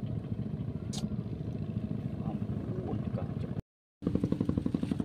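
A small engine running steadily with a fast, even beat. The sound cuts out for a moment about three and a half seconds in and comes back louder.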